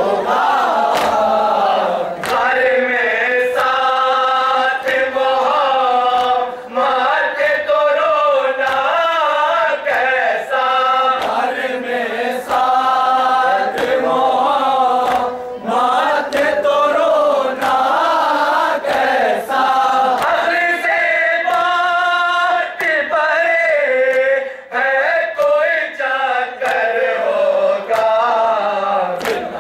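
Group of male voices chanting an Urdu nauha (mourning lament) in unison through microphones, in long sung phrases with short breaks between lines. Sharp slaps sound at intervals through the chant.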